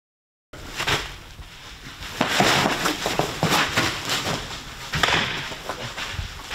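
Silent for the first half second, then a run of sharp snaps and knocks over a noisy background: a baseball smacking into leather gloves during a catcher's throwing drill.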